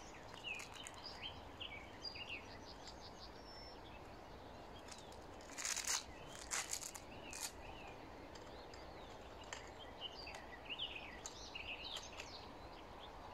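Wild birds chirping and singing over a faint steady outdoor background, with a short cluster of sharp clicks and rustles about six seconds in from hands working a plastic strap clip.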